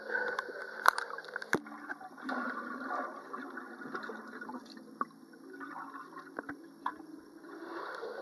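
Pool water sloshing and gurgling around a camera held at and then under the surface, the sound muffled by the water. There are two sharp knocks about one and one and a half seconds in.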